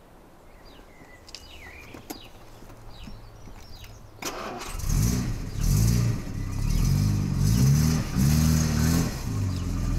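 Jaguar 240's 2.4-litre XK straight-six cranked and catching about four seconds in, then blipped up and down about six times before settling toward an even idle, sounding sweet.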